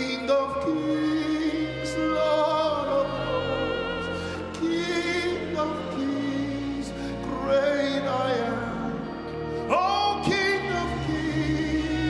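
Gospel worship music: a singing voice holding long notes with vibrato over sustained accompaniment and bass, scooping up into new notes about ten seconds and thirteen seconds in.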